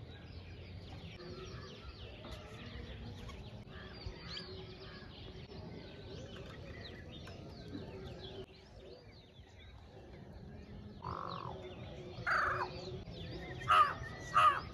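Morning chorus of many small birds chirping, with a crow cawing several times, loudest over the last few seconds.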